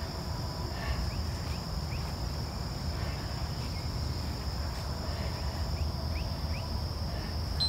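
Insects trilling steadily in a high, unbroken drone, over a low steady hum.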